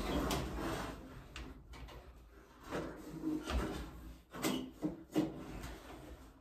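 Irregular knocks, rubs and scrapes from hands working on a ceiling light fixture and its wiring up in a drop ceiling.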